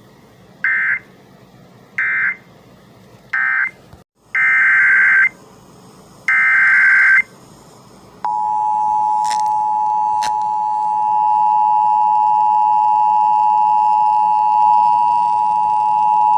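Emergency Alert System tones: three short screeching digital data bursts, the end-of-message code closing the previous alert. Then come two longer data bursts, the header of the next alert. About eight seconds in, the steady two-tone EAS attention signal starts and holds.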